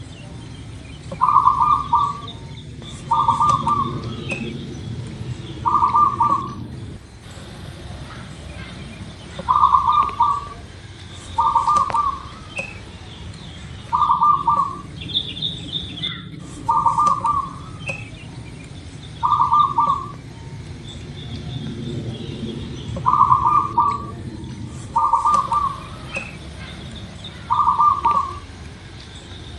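Zebra dove (perkutut) cooing: short trilled coo phrases about every two seconds, falling into runs of three with short pauses between runs. Faint chirps of other birds and a steady low background noise lie beneath.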